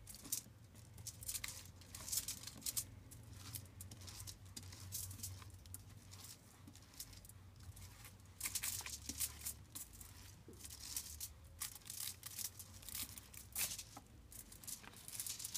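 Tint brush stroking hair dye through wet hair extensions laid on aluminium foil: quiet, irregular scratchy strokes with light crinkling of the foil.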